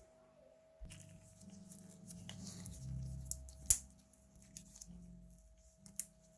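Close-up handling noise from working on a small cassette Walkman: rubbing and scattered small clicks, with one sharp click a little past halfway. A faint steady hum tone runs underneath.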